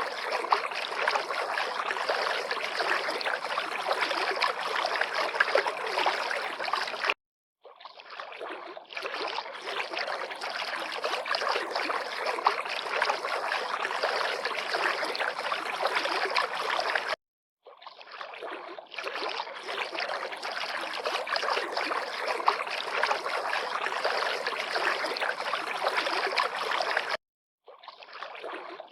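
River water lapping and flowing in a steady rush. It cuts out abruptly for about half a second three times, roughly ten seconds apart, and fades back in each time.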